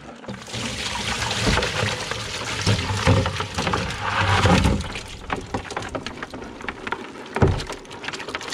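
Muddy dam water and live yabbies poured from a plastic bucket into a plastic tub, splashing for about five seconds. Then scattered clicks and taps, with one thump near the end.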